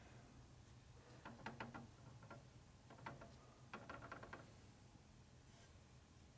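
Faint small clicks and taps of a machinist's precision level being handled and reseated on a lathe's cast-iron bed ways. They come in a few short clusters, the first about a second in and the last near the middle, over near silence.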